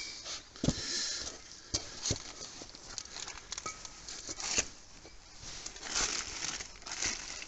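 Clear plastic bag crinkling and rustling as old and new rear brake discs are handled and shifted on it, with a few light knocks near the start.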